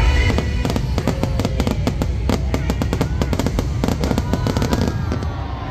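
Fireworks going off in a dense, rapid barrage of sharp bangs and crackles over a low rumble, thinning out near the end.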